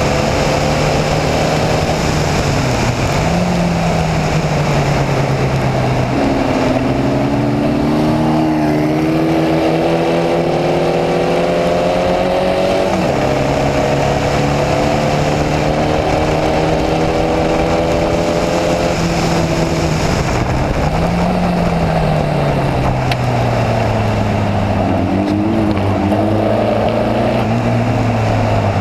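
Formula Vee racing car's air-cooled Volkswagen flat-four engine heard onboard, pulling through the gears: the engine note climbs, drops at each gear change and falls away when lifting for corners, over a steady rush of wind and wet-track spray.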